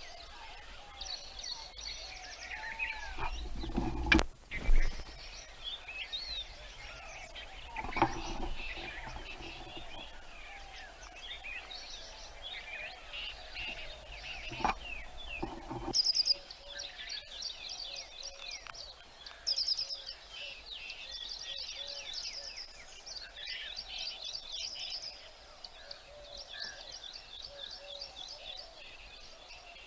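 A chorus of small birds chirping and trilling rapidly and continuously, with a few brief loud bumps, the loudest about four seconds in.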